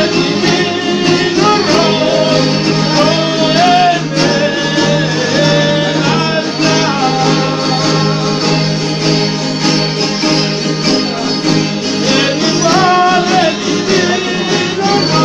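Several strummed guitar-like string instruments playing together, accompanying a group of voices singing a devotional song.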